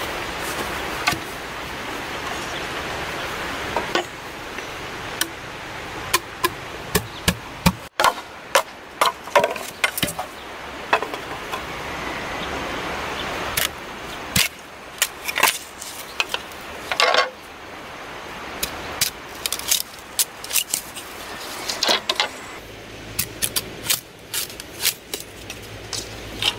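A hand blade working green bamboo poles. It rasps on the bamboo for the first few seconds, then comes a long run of sharp knocks and taps of the tool and poles, with short stretches of scraping between them.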